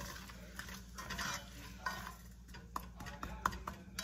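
Plastic spoon stirring peas in an aluminium pot, scraping along the pot with a few sharp knocks against its side, the clearest about two, two and three-quarter and three and a half seconds in.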